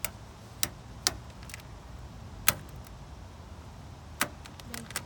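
A series of sharp clicks or taps at uneven intervals, about eight in five seconds, over a steady low rumble.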